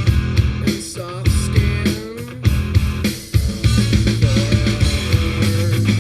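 Rock music with drums, guitar and singing, played through a Jeep Wrangler JK's Kicker 6.5-inch door speakers as a sound test.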